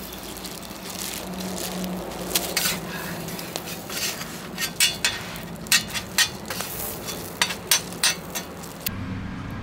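Ham, egg and toast frying on a flat steel griddle with a steady sizzle, with sharp clicks and scrapes of a metal spatula on the griddle. Near the end it changes to a low steady hum.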